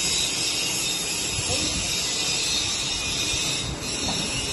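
A 50 kg stainless-steel paddle mixer's electric gear motor running at a steady, even hiss-like whir with a low rumble underneath.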